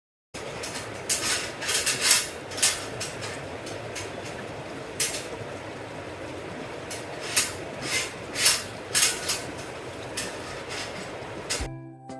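Wood fire burning with a steady rush and irregular sharp crackles and pops. Music cuts in near the end.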